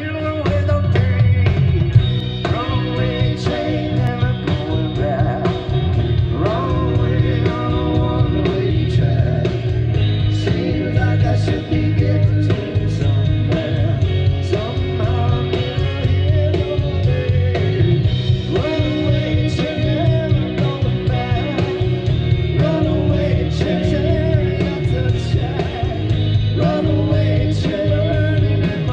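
Live rock band playing: electric guitars, electric bass and a drum kit keeping a steady beat.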